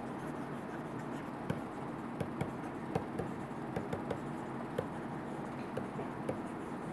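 Pen stylus tapping and scratching on a tablet screen during handwriting: light, uneven ticks over a faint steady hiss.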